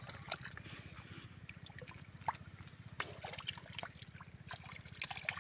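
Faint trickling and small splashes of shallow river water stirred by hand, with a few short sharp clicks, over a steady low rumble.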